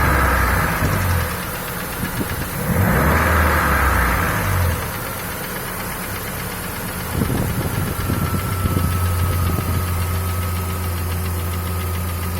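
ZMZ-406 inline-four petrol engine running with a knock. The revs rise twice for a second or two and drop back to idle, then rise and hold from about seven seconds in. The owner hears the knock at idle and at light steady throttle, and says it disappears under heavier load; the cause is unknown to him.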